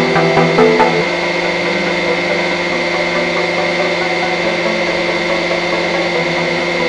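Hydraulic press's pump motor running idle with a steady drone.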